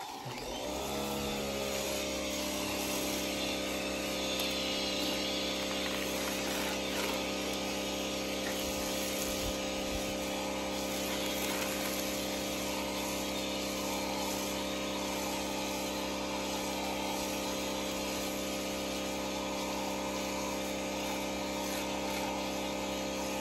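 Giraffe Tools 2200 PSI electric pressure washer starting up about half a second in, its motor and pump rising in pitch and settling into a steady hum. The hiss of the water and soap spray runs over it.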